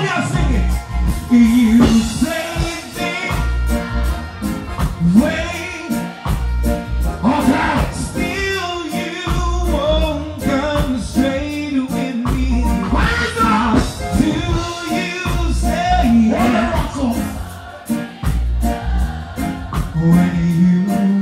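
Male vocalist singing live into a handheld microphone over music with a heavy bass, played through a concert sound system.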